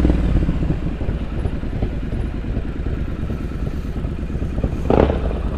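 Triumph Street Scrambler 900's parallel-twin engine running steadily at low revs under way, with road and wind noise; a short louder burst of sound comes about five seconds in.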